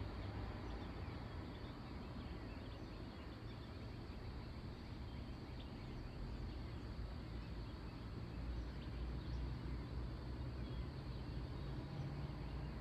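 Evening outdoor ambience by the tracks: a steady low rumble with many faint, small chirps scattered over it, from birds or insects.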